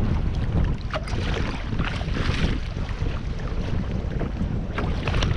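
Strong wind buffeting the microphone in a steady rumble, with water slapping and splashing against a kayak's hull in a few short knocks.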